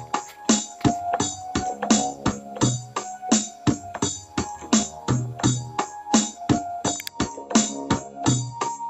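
Background music with a steady beat and keyboard notes.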